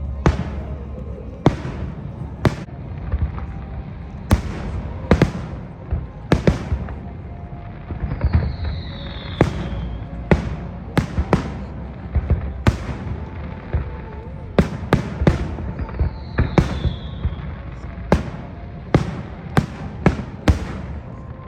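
Aerial fireworks bursting in a rapid, irregular run of sharp bangs over a low rumble. Twice a whistle glides downward.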